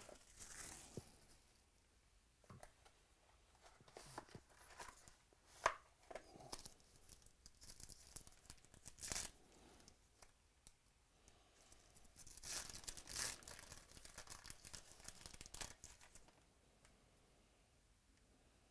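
Trading card packs being torn open and the cards handled: scattered tearing and crinkling of pack wrappers with small clicks and slides of cards, busiest about twelve to sixteen seconds in, then falling nearly quiet.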